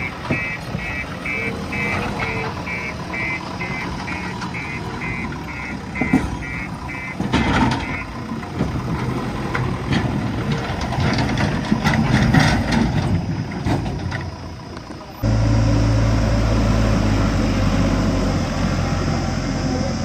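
JCB backhoe loader at work: its reversing alarm beeps about twice a second over the diesel engine for the first eight seconds or so, then the engine runs on alone, changing in pitch. About fifteen seconds in, the sound jumps suddenly to a louder, steady low engine drone.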